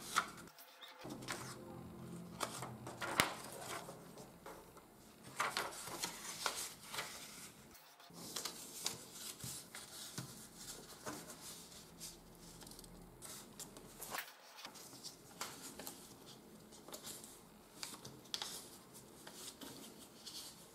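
A sheet of 80 g/m² A4 office paper is folded and creased by hand, making a faint rustle with scattered short crisp crackles as the folds are pressed flat. The sound cuts out briefly three times.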